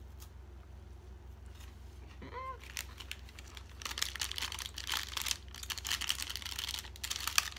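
Snack wrapper crinkling in quick, irregular rustles as it is handled, starting about three seconds in; a short hummed 'mm' comes just before it, over a steady low hum.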